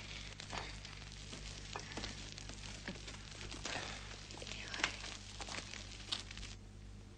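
Fire crackling and hissing, with scattered sharp snaps; the hiss cuts off suddenly near the end.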